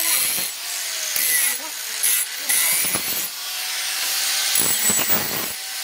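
Electric angle grinder with a sanding disc running against a steel knife blade, a continuous grinding hiss as the disc bites the metal and throws sparks. The motor's pitch sags and recovers as it is pressed on, with heavier scraping spells about three seconds in and again near the end.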